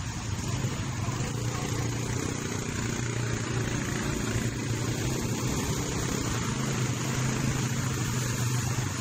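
Quad bike (ATV) engines running steadily at a low, even hum while the bikes ride through mud.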